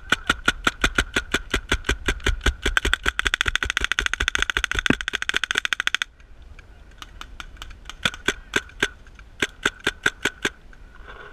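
Paintball marker firing in rapid semi-automatic strings, several shots a second. The shooting speeds up about three seconds in and stops about six seconds in, and two shorter bursts follow near the end. A faint steady high whine runs under the shots.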